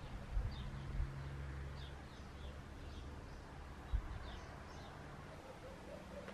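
Faint, scattered short bird chirps over a low steady background rumble, with three dull low thumps, the loudest moments, about half a second in, at one second and near four seconds in.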